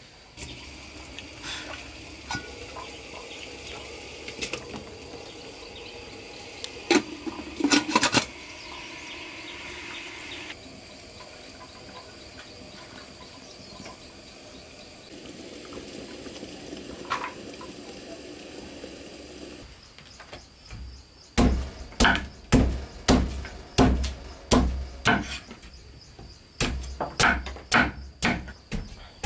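Machete blade chopping a hard red root on a wooden cutting board: loud, even strikes about twice a second, starting about two thirds of the way in, with one short pause. Before that come quieter handling sounds with a few sharp cracks.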